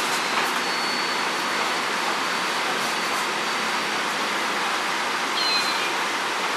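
Scania double-decker bus engine idling while parked, a steady even running sound with a faint low hum. A brief falling high squeak about five and a half seconds in.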